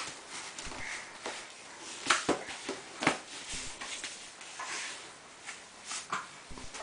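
A baby playing with a tissue box: scattered short rustles and knocks of tissues and cardboard box against a foam play mat, the sharpest about two and three seconds in, with small breathy baby noises between.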